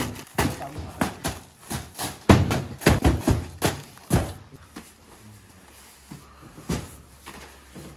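Cardboard boxes being handled and set down in a metal-railed cart: a quick run of knocks and thuds for about four seconds, then a few scattered ones.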